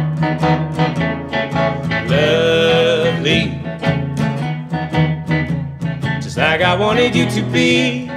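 Live folk song on acoustic guitar and electric guitar, strummed in a steady rhythm of about four strums a second. Singing comes in for a phrase about two seconds in and again from about six and a half seconds.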